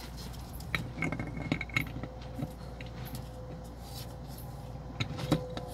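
Steel automatic-transmission parts clinking as a planetary gear carrier is worked back into its drum by hand: scattered light metallic clinks and taps, a cluster about a second in and the loudest one near the end.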